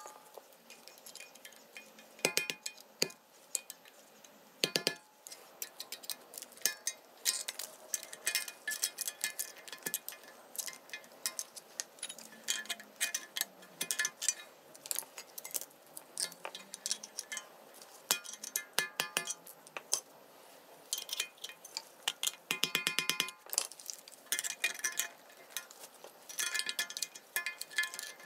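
Irregular light metallic clinks and ticks, each with a short ring, as snap ring pliers work at the snap ring of a front wheel bearing in its steering knuckle; the clinks come in clusters, with a quick run of them about 23 seconds in.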